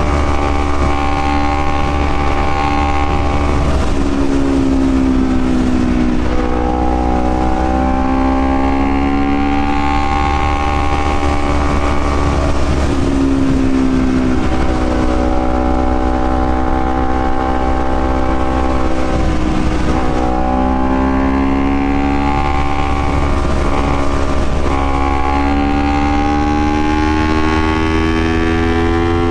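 Honda CBR250RR motorcycle engine under way, its pitch climbing steadily through each gear and dropping sharply at each upshift, several times over, with a steady low rumble underneath.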